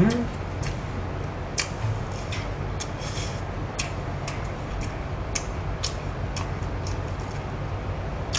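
Close-miked chewing of glazed roast chicken: irregular wet mouth clicks and smacks, roughly one or two a second, over a low steady hum.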